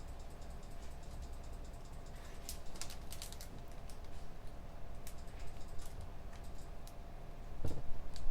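Computer keyboard typing in irregular bursts of quick key clicks over a low steady room hum, with a duller knock near the end.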